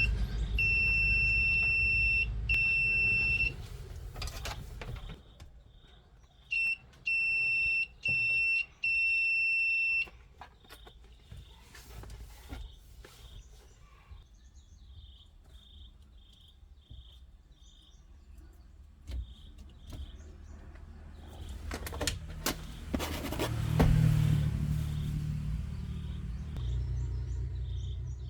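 An electronic beeper sounds over a low running-engine rumble, first in two long beeps and then in four shorter ones. After it stops, short insect-like chirps repeat steadily about twice a second, and the low rumble returns louder near the end.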